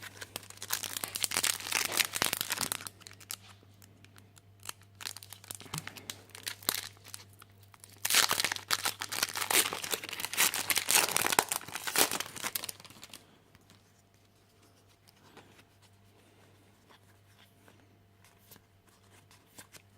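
Foil wrapper of a Magic: The Gathering booster pack being torn open and crinkled, in two spells of crackling: a short one at the start and a longer, louder one about 8 seconds in lasting some four seconds.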